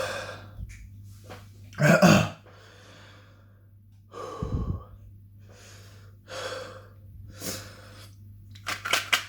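A man breathing hard and gasping through his mouth from the burn of an extremely hot chili, a sharp breath every second or two, the loudest about two seconds in, with a few quick mouth clicks near the end.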